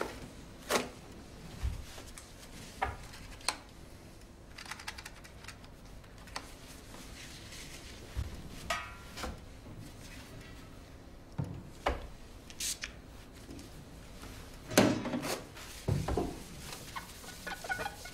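Scattered small knocks, taps and rustles of things being handled on an office desk, the loudest a knock and shuffle about fifteen seconds in.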